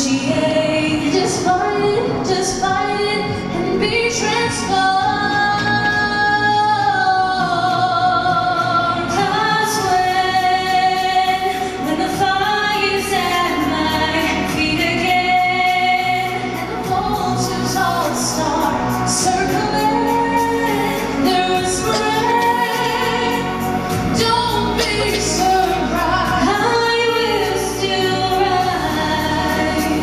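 Two female voices singing a duet into handheld microphones, with sustained low accompaniment beneath.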